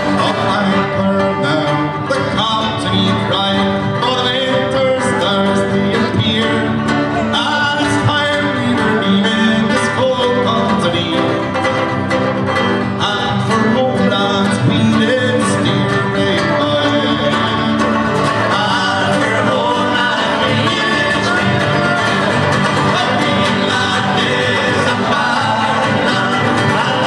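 Live acoustic folk band playing a tune on fiddle, banjo and two acoustic guitars, heard through a room full of audience.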